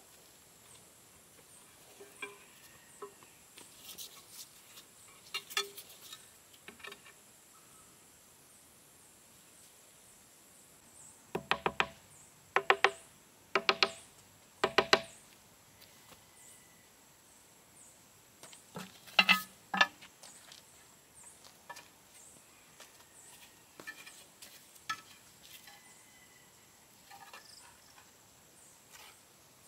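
Hard taps and knocks of hand masonry work on tile, stone and cement, with small scrapes in between. A run of four loud, ringing knocks comes a little before the middle and another loud cluster a few seconds later.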